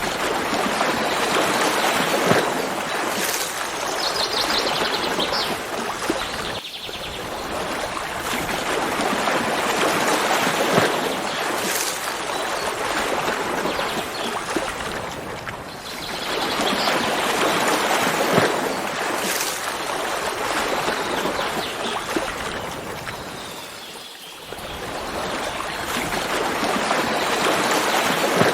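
Running water rushing steadily, swelling and easing in loudness every several seconds, with a brief high bird trill about four seconds in.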